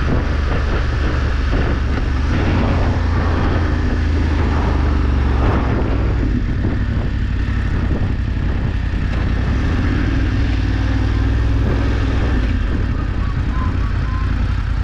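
Motorcycle under way, its engine running steadily under a heavy low rumble; the engine note shifts about five seconds in and again near the end.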